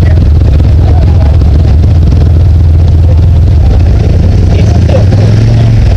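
Polaris RZR side-by-side's engine idling steadily, loud and close, with a slight swell in engine speed near the end.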